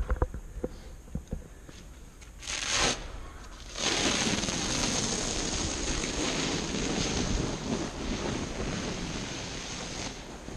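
A strip of glue-down commercial carpet being ripped up off a concrete floor: a short tear about two and a half seconds in, then a long continuous rip from about four seconds in until near the end. A few knocks come at the very start.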